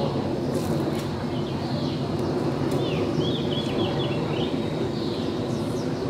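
A small bird chirps a quick run of about six short high notes about three seconds in, with a few fainter chirps around it, over a steady low background din.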